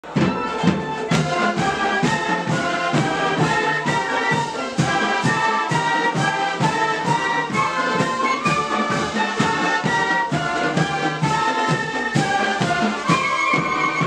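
School pep band playing an upbeat tune: brass, with sousaphones, trumpets and trombones, over a steady drum beat.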